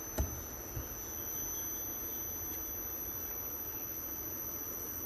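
Inverter air-conditioner compressor running steadily off the repaired outdoor-unit drive board, a low hum under a constant high-pitched whine.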